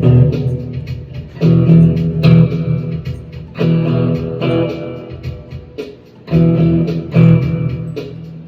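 Electric guitar, a Cooder Caster with gold foil pickups, played through a Supro Roadhouse amp. Chords and short phrases are struck about every second or two and left to ring out, with a brief lull near the six-second mark.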